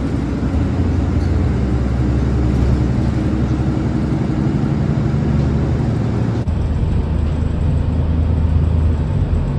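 Steady road and engine noise of a moving car, a continuous low rumble. It changes abruptly about six and a half seconds in.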